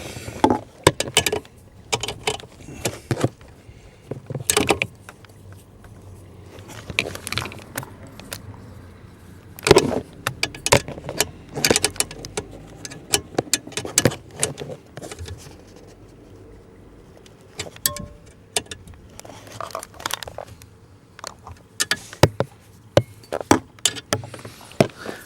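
Irregular metallic clicks and clinks of a hand tool working 10mm bolts as they are run in and tightened, some in quick runs of clicks.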